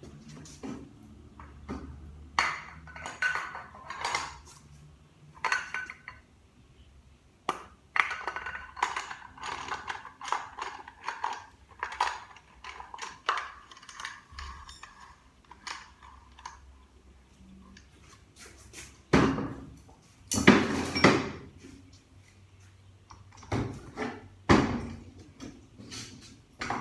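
Steel automatic-transmission parts clinking, knocking and scraping against each other as they are handled and pried apart during teardown: a long string of separate ringing clinks, with a few louder scraping strokes about two-thirds of the way in.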